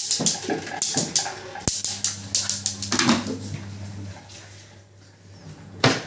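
Siberian Husky puppy whimpering and making short cries in play, among quick clicks and knocks during the first three seconds, then quieter.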